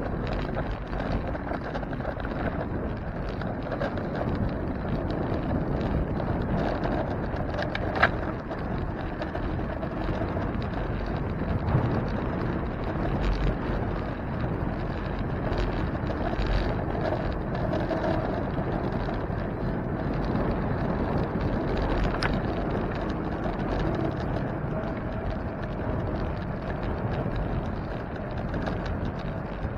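Steady rolling and wind noise of a bicycle ride, with wind buffeting the microphone and a sharp click about eight seconds in.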